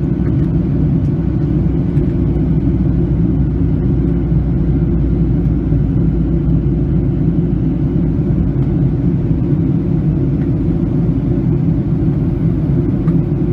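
Steady cabin drone of a Boeing 737-600 in the climb after takeoff: its CFM56-7B turbofans and the rushing air make a loud, even, low rumble.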